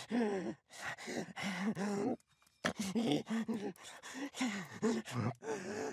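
A cartoon voice gasping and groaning in short, strained breaths with brief pauses between them: an animated goldfish struggling for air out of water.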